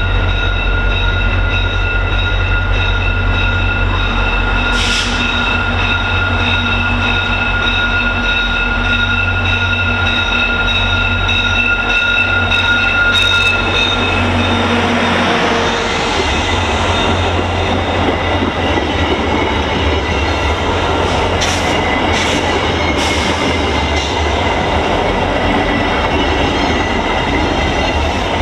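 VIA Rail F40PH-2 diesel locomotives and passenger coaches rolling slowly past at close range as the train pulls in for a station stop. A low diesel rumble carries a steady high whine through the first half. From about halfway, heavier wheel-and-rail noise takes over as the locomotive and cars go by, with a few brief sharp squeaks from the wheels.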